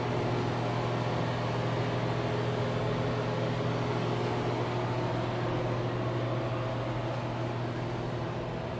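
A steady low mechanical hum, with a few faint steady tones above it, easing off slightly near the end.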